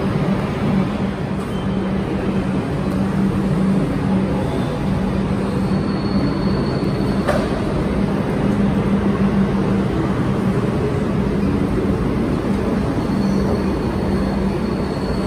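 Railway station ambience: a steady low rumble with a hum, carrying up from the tracks and trains below, and a single click about seven seconds in.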